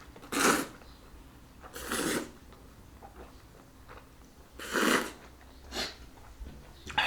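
A man's mouth and breath noises while eating extremely spicy noodles: four short, noisy bursts of breath and slurping as his mouth burns from the chilli.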